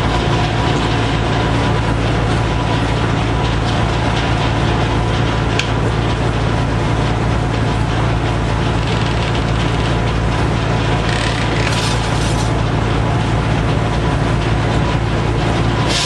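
Antique circular sawmill running: the large circular blade spins and cuts through a log on the carriage. A loud, steady noisy rush sits over a constant low hum from the drive.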